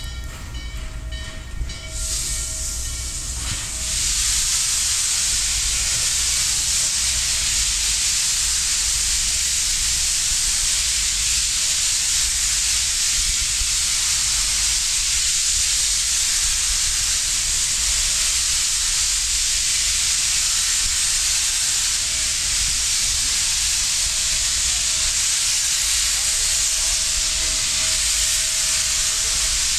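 Norfolk & Western 611, a J-class 4-8-4 steam locomotive, sounding a chime whistle for the first three seconds or so, then a loud, steady hiss of steam from about four seconds in as the engine works toward the camera.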